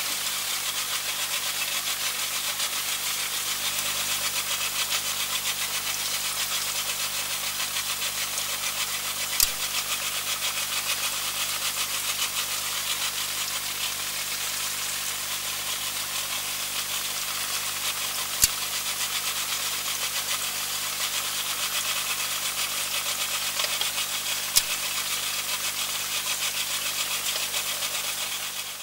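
Inshore lifeboat's outboard engine idling steadily with a hiss, and three sharp clicks spread through.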